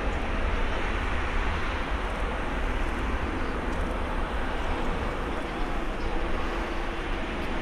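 Boeing 737-800 freighter's CFM56-7B jet engines running at taxi power as it lines up on the runway: a steady rumble and hiss.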